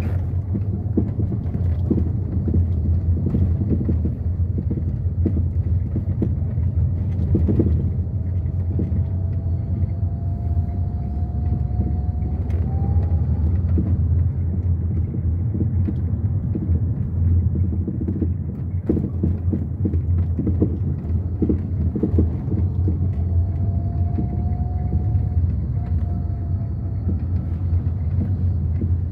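Fiat Idea Adventure driving over a potholed street: a steady low road rumble with frequent sharp knocks from the rear suspension. The mechanic is 99% sure the knocking comes from play in the worn rear shock-absorber top mounts.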